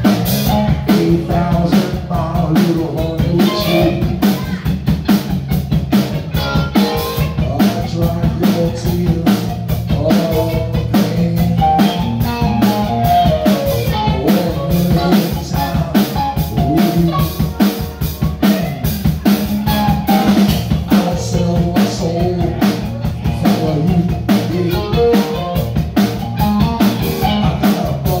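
Live rock band playing loud: electric guitar over a steady drum kit beat, with snare and bass drum hits, amplified in a small room.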